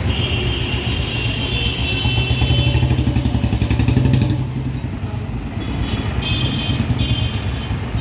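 Royal Enfield Bullet 350's single-cylinder engine running with a steady thump. It is revved up as the bike pulls away about two seconds in, then fades as it rides off. The newly fitted drive chain is running smoothly.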